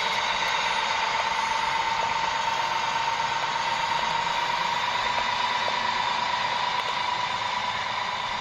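Small electric motor and gearbox of a radio-controlled construction model running with a steady high whine that rises slightly in pitch, over a hiss of gear noise.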